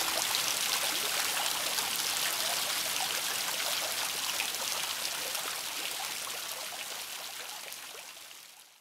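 Water spilling over the ledge of a fountain and splashing into the pool below, a steady rushing that fades out gradually toward the end.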